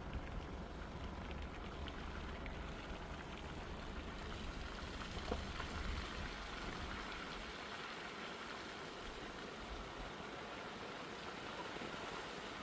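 Steady rain falling, with a few faint drop ticks, over a low rumble that fades out a little past halfway.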